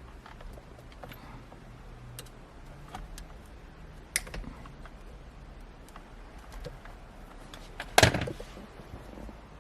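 Scattered light clicks and small knocks from hand work inside a car, with one loud thud about eight seconds in.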